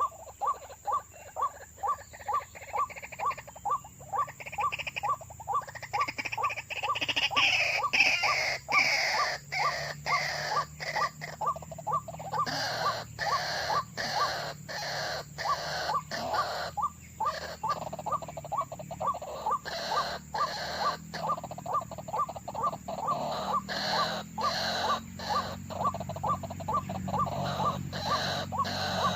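White-breasted waterhen calls: a short, monotonous note repeated evenly about twice a second. From about six to ten seconds in, a louder call rising and falling in pitch joins in over it.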